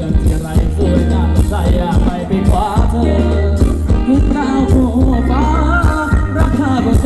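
Thai luk thung dance song played loudly by a band, with a singer over a heavy bass line and a steady drum beat.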